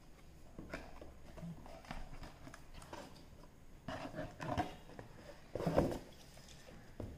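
Hands handling a plastic-wrapped smartphone box: scattered light taps, knocks and rustles, with the loudest clusters about four and six seconds in.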